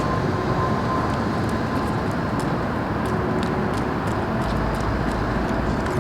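Steady city background noise: an even traffic rumble with a faint steady hum through it and a few faint light clicks.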